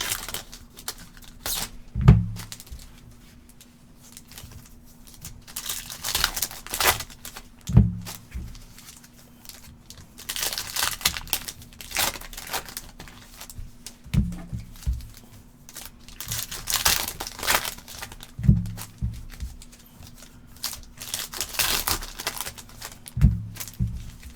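Foil-wrapped trading card packs being torn open and their wrappers crinkled, in repeated bursts. A sharp thump comes about every five seconds, five times in all, over a faint steady hum.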